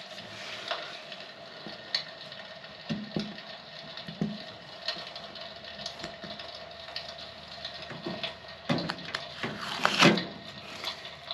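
Protective film being peeled off a new electric fireplace, with scattered taps, scrapes and crinkling, loudest about nine to ten seconds in.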